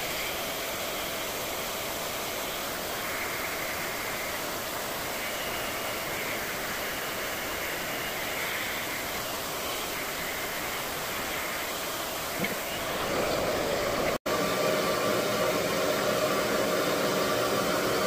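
Rev-air vacuum blow dryer running, a steady rush of air through the wand and hose with a section of hair drawn into it. About 13 seconds in the sound grows louder, cuts out for an instant, then continues louder with a steadier hum.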